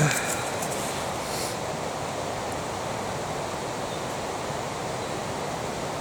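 Steady, even rushing of a river flowing close by, with a few light rustles and clicks in the first second and a half.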